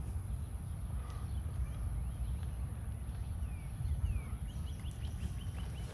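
Outdoor ambience: a steady low rumble like wind on the microphone, with faint bird chirps and a quick run of chirps near the end.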